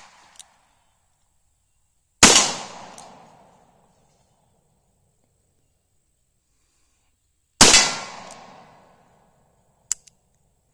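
Two revolver shots about five seconds apart from an 1873-pattern revolver converted to .45 Colt. Each is a sharp crack followed by an echo that dies away over about a second and a half. Two short sharp clicks come near the end.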